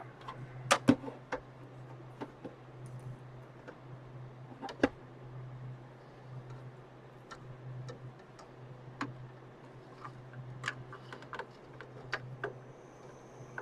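Scattered sharp clicks and small taps of a screwdriver working on a CPU cooler's mount inside a PC case, loosening the cooler, the loudest about a second in and again near five seconds. A steady low hum runs underneath.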